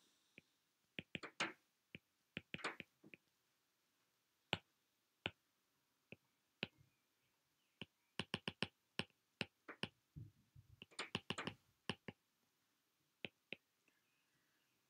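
Faint, sharp clicks of a stylus tip tapping on an iPad's glass screen during handwriting, irregular and scattered, with quick runs of clicks about eight and eleven seconds in.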